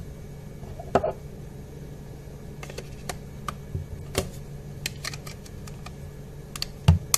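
Plastic clicks and taps of a Xiaomi Redmi 2 smartphone being handled: battery fitted and back cover pressed and snapped into place against a tabletop. The clicks come irregularly, with louder ones about a second in and past the middle, and a knock near the end.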